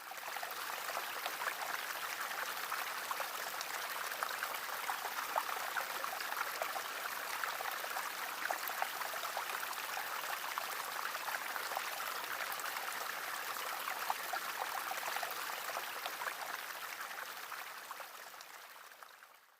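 Steady rush of running water with fine splashing, fading out near the end.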